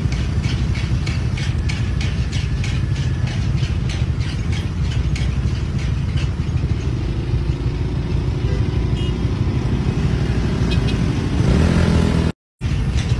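Motor scooters and cars in traffic running with a heavy low rumble. A regular ticking about three times a second runs for the first five or six seconds, and an engine tone slowly rises in pitch later on. The sound cuts out briefly near the end.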